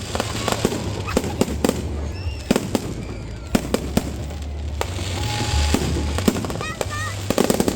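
Fireworks going off in quick succession, a string of sharp pops and cracks over a steady low rumble, with a few short whistles near the end.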